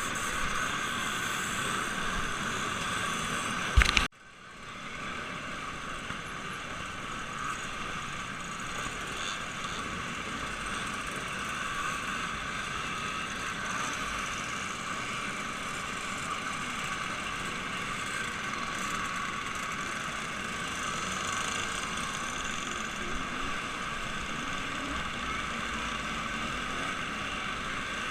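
Steady mechanical running drone, broken about four seconds in by a single sharp click and a brief drop in level before the drone returns.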